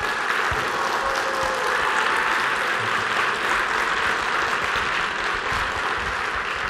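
Audience applauding, dense and steady.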